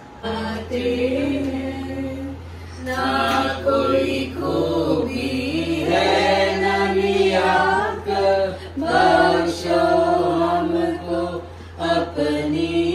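A small group of people singing a Christian hymn together, unaccompanied. A steady low hum runs underneath.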